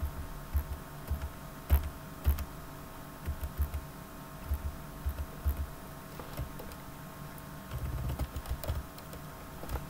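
Typing on a computer keyboard: irregular key clicks and thumps as commands are entered, with a quicker run of keystrokes near the end.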